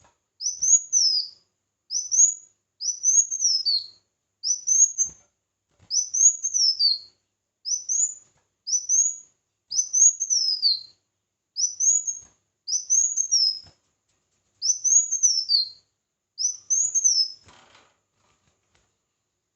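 A small songbird singing a string of short, high, sweet phrases, roughly one a second. Each phrase rises quickly and then slurs down. The phrases stop shortly before the end.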